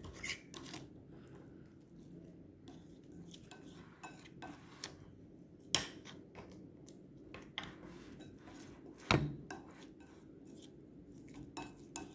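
A utensil stirring glue slime in a bowl as the borax activator sets it, with irregular small clicks and scrapes against the bowl and two louder knocks partway through.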